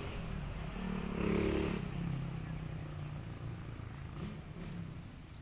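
Engine of a passing vehicle, growing louder about a second in, then fading away with its pitch wavering.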